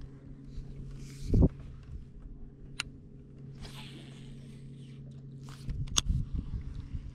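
Electric trolling motor humming steadily, cutting out near the end. Over it, a thump a little over a second in, then a cast with a baitcasting rod and reel: a hiss as line pays out about four seconds in, and sharp clicks of the reel.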